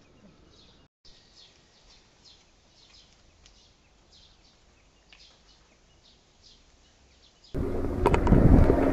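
Faint, scattered bird chirps over a quiet outdoor background. About a second before the end, a loud noise starts abruptly with a steady hum: a khaki helicopter flying close overhead.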